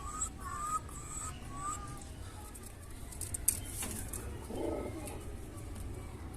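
Pigeons calling: a run of short, rising peeps in the first two seconds, then a lower coo about four and a half seconds in. A sharp click comes just before the coo.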